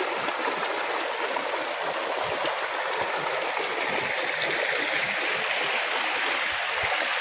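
A stream flowing, a steady rushing of water with no breaks.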